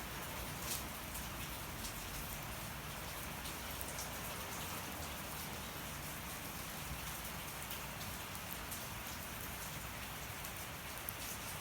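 Steady rain falling, with a wood fire crackling and giving a few sharp pops.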